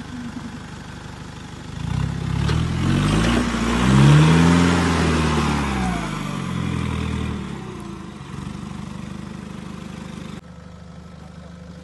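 Nissan Patrol GR off-roader's engine revving up under load as it climbs a rocky slope, rising about two seconds in, peaking, then easing back to a steady low run. Loose rock and gravel grind under the tyres during the climb.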